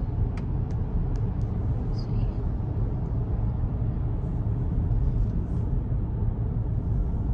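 Steady low rumble of a car's engine and tyres heard from inside the cabin while driving, with a few faint ticks in the first second and a half.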